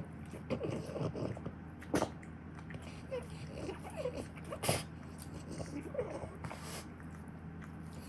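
French bulldog making a run of short, irregular noises from the nose and throat, with sharp catches about two seconds and nearly five seconds in. This is the occasional episode the owner wonders may be reverse sneezing or a sign that the dog is about to vomit.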